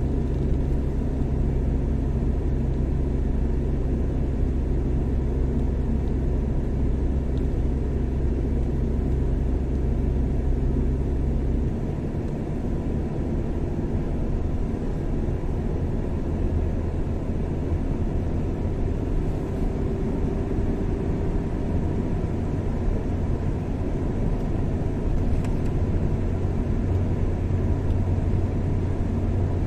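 Steady low rumble of a car driving at road speed, engine and tyre noise together; its low tone shifts about twelve seconds in, then holds steady again.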